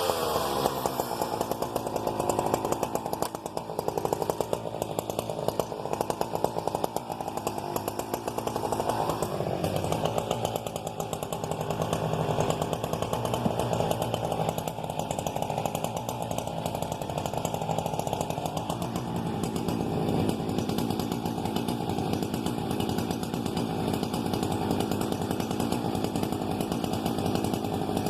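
Husqvarna 395XP 94 cc two-stroke chainsaw running steadily, its engine note shifting slightly about nine and nineteen seconds in.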